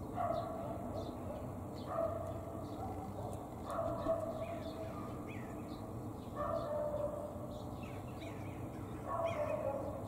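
A distant animal calling five times, a drawn-out call every two to three seconds, with faint high chirps of small birds in between.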